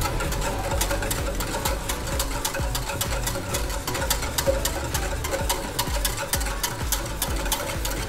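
Wire whisk beating hot milk in a steel pot to mix in sugar, its wires clicking against the metal sides in quick, irregular strokes over a low rumble.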